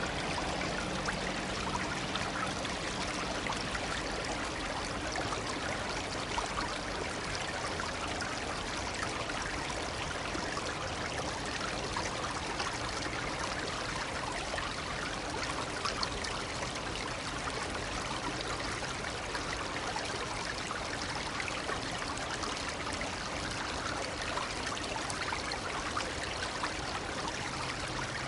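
A shallow brook babbling steadily: a continuous rush of running water, flecked with small trickling splashes.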